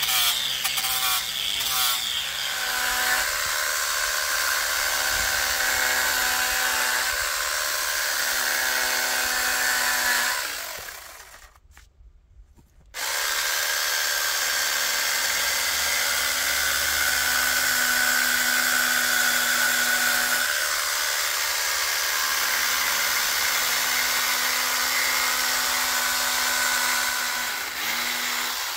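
An angle grinder working a cedar carving runs with a steady whine, then stops about ten seconds in. After a pause of about two seconds, a small cordless chainsaw runs steadily as it carves into the cedar.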